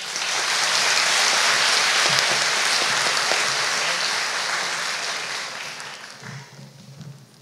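Audience applauding, starting at once and dying away over the last two seconds or so.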